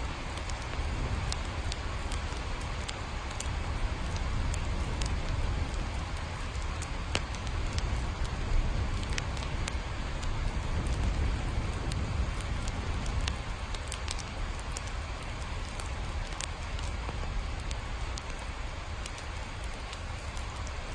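Steady rain, an even hiss with scattered sharp drop ticks, over a deep low rumble.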